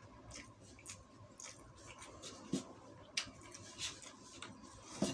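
Close-up eating sounds: a man chewing a mouthful of rice while a spoon and fork scrape and click through the food on its paper wrapping and plate. Short irregular clicks throughout, a few sharper ones about two and a half, three and five seconds in.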